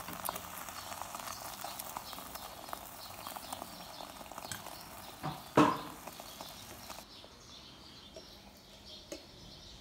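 Egg frying in oil in a nonstick electric pan, a steady crackling sizzle with many small ticks, and metal tongs clinking against the pan once about five and a half seconds in. The sizzle drops away about seven seconds in.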